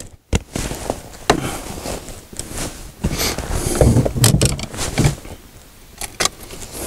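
Irregular knocks, clicks and short rustles of fishing gear being handled aboard a kayak.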